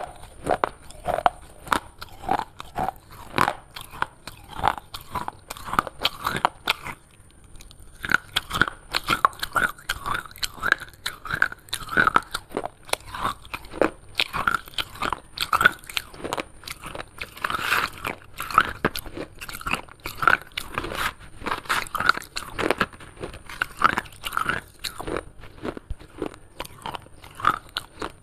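Someone biting and chewing broken clay shards: a dense run of sharp, brittle crunches, with a short pause about seven seconds in.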